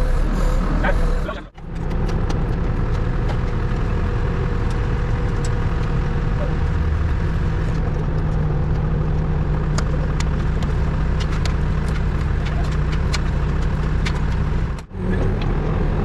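HEPCO HLB95B backhoe loader's diesel engine running steadily at a constant speed, with scattered light clicks and knocks over it. The sound cuts out briefly twice, about a second and a half in and just before the end.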